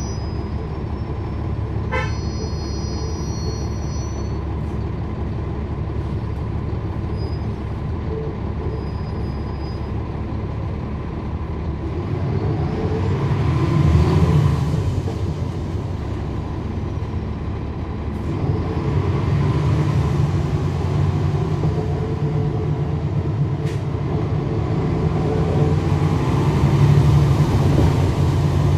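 Cummins ISL9 diesel engine of a NABI 40-SFW transit bus running, growing louder as the bus pulls away around the middle and again through the second half. A high electronic tone sounds for a couple of seconds near the start.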